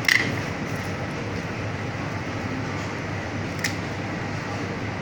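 Steady background machine hum, with a sharp click right at the start and a lighter tap a little before four seconds in.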